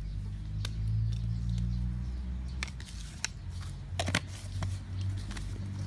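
A spoon and a plastic sugar jar being handled, giving a few scattered sharp clicks and taps, the loudest pair about four seconds in, over a steady low hum.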